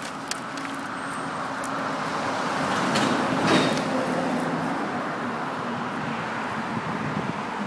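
Street traffic: a vehicle passing, growing louder to a peak about three seconds in and then easing off, over a steady low hum.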